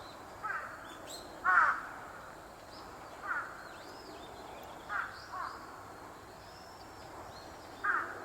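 A crow cawing repeatedly, about six harsh calls spaced a second or two apart, the loudest about a second and a half in. Faint high chirps of small birds sound in the background.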